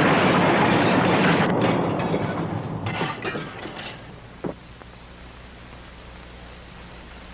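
Earthquake sound effect: a loud, deep rumbling roar with clattering debris, as of a building collapsing. It dies away about four seconds in, a single knock follows, and after that only a low hum remains.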